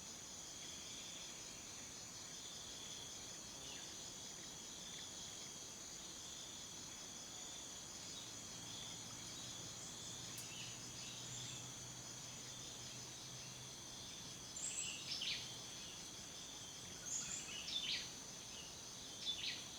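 Forest ambience of crickets and other insects trilling steadily in a high, pulsing chorus. Over it a bird gives short falling calls in three bouts during the last five seconds.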